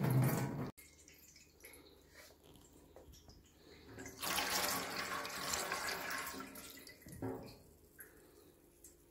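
Tangerine wine running out of a siphon hose and splashing into a stainless sink, loudest for about three seconds from around four seconds in. A short loud noise comes at the very start.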